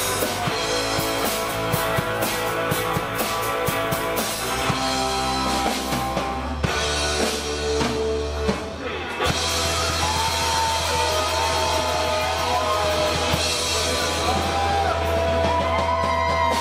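Live rock band playing an instrumental passage on electric guitars and a drum kit. About ten seconds in, a high lead line with bent, held notes comes in over the band.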